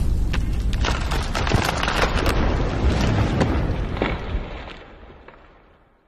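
A loud, deep rumbling boom full of crackles and pops, dying away over the last two seconds.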